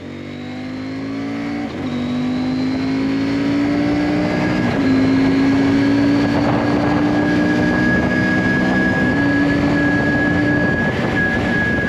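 CFMOTO MT 800's KTM-built parallel-twin engine pulling hard, its pitch climbing and then dropping at three upshifts, under a rising rush of wind noise as speed builds. Near the end the engine note fades and the wind rush carries on.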